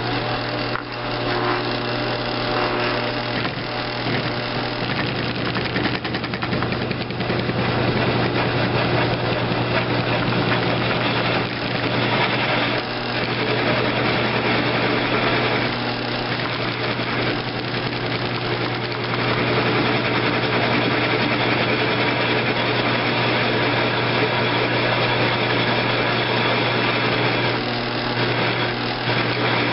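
Grizzly G1007 mill-drill running under load, a steady motor hum under the rough noise of its end mill cutting a carburetor air valve seat. The cut is chattery and rough at first, then smooths out as the seat cleans up.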